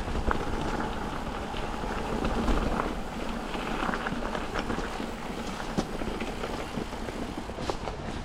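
Specialized Stumpjumper mountain bike rolling over a rough dirt and rock trail: tyre noise with scattered clicks and knocks from the bike on the rough ground, and wind on the microphone.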